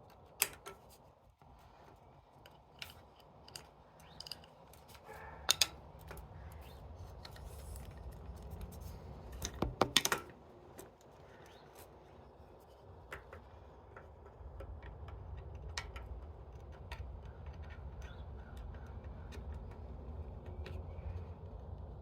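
Scattered metallic clicks and taps of hand tools on a hose clamp around a bicycle's kickstand and frame, with a quick cluster of sharp clicks about ten seconds in, over a low steady hum.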